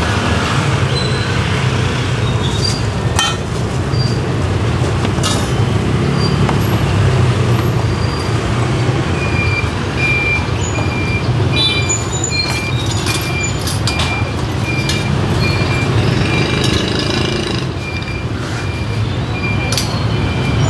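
Steady street traffic rumble, mostly motorbikes, with scattered sharp knocks. From about nine seconds in, a short high electronic beep repeats steadily, under a second apart.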